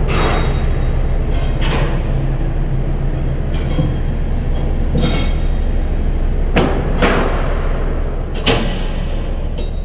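Narrowboat's diesel engine running steadily with a low, even throb, with several sharp knocks at irregular intervals.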